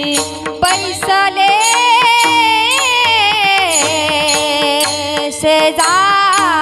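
A woman singing a Marathi Varkari kirtan melody in long, ornamented held notes, over a steady harmonium-like drone with pakhawaj drum strokes.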